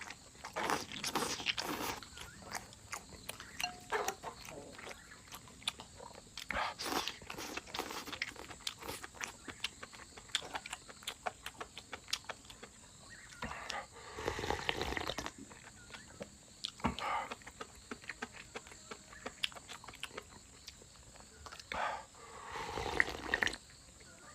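A person eating chicken close to the microphone: chewing and biting with many small wet clicks and crunches, louder around 14 and 23 seconds in.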